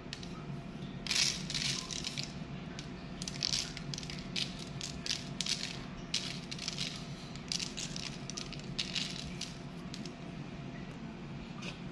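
Sesame seeds sprinkled by hand onto egg-washed bread rolls and parchment paper on a metal baking tray, making short scattering sounds about once a second. A steady low hum runs underneath.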